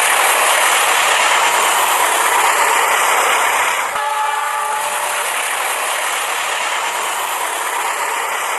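Battery-powered toy train running on plastic track: a steady mechanical whir and rattle of its motor and wheels, with a faint high whine twice. The level dips slightly about four seconds in.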